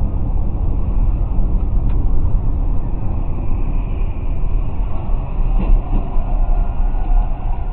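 Steady low rumble of tyres and engine heard from inside a car moving at highway speed, picked up by a dashcam microphone.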